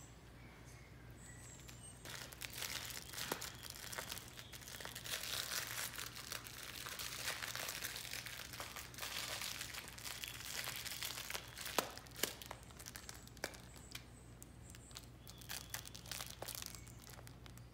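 Plush cat toys crinkling and rustling as cats bite, claw and kick at them, with many sharp crackles and clicks. It starts about two seconds in, is busiest in the middle and thins out near the end.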